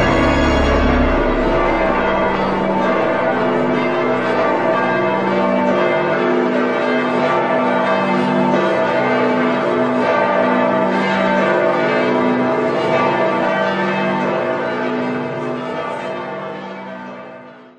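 Church bells pealing, many ringing tones overlapping. A low held note dies away in the first two seconds, and the bells fade out near the end.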